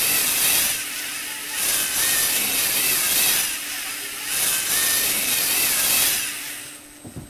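Lego Technic gear train driven by Lego Mindstorms NXT motors, whirring and grinding as the lift raises and lowers a model car. The whine swells and eases three times, then stops near the end.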